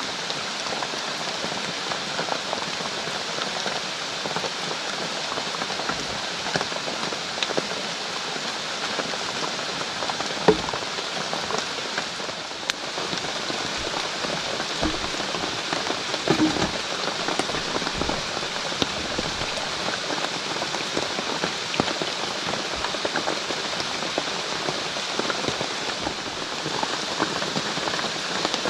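Steady heavy rain falling, with scattered drop hits and a few light knocks.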